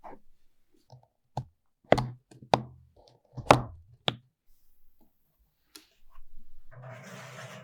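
Five sharp knocks on a hard kitchen surface, roughly half a second to a second apart, some with a short low ring; about six seconds in a steady noise with a low hum starts and keeps going.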